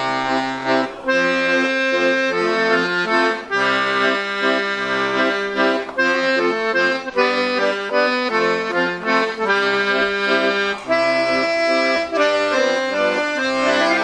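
Piano accordion playing a tune: a melody over alternating bass notes and chords.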